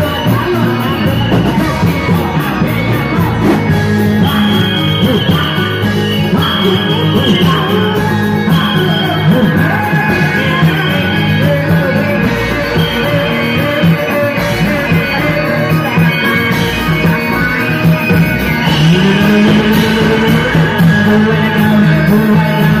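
Loud Indonesian bendrong music with singing, played for a reog performance; held sung or played notes ride over a steady accompaniment.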